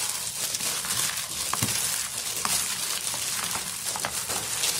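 A hand in a disposable plastic glove kneading and mixing raw ground pork and shredded sweet potato in a plastic bowl: steady crinkling of the glove and squishing of the filling, with a few light clicks.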